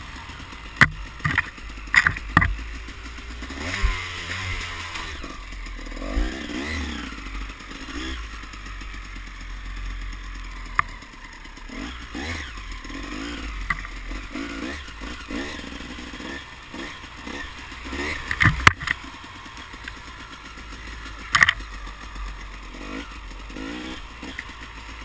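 A small off-road vehicle's engine running along a rough dirt trail, its pitch rising and falling as the throttle opens and closes. Sharp knocks and rattles come from the machine jolting over bumps, the loudest a few times near the start and twice near the end.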